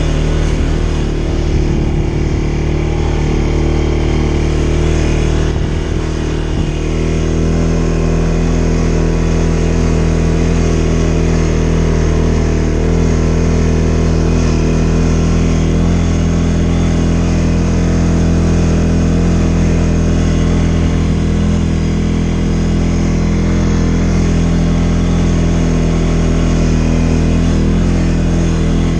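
CFMoto ATV engine running steadily at low trail speed while the quad is ridden, a constant drone with a brief dip about six seconds in.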